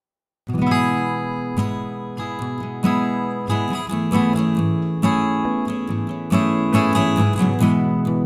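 Background music begins abruptly about half a second in, after dead silence: a strummed acoustic guitar playing steadily.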